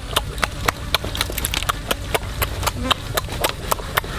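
Mouth sounds of someone chewing roast chicken: a fast, irregular string of smacks and clicks, several a second.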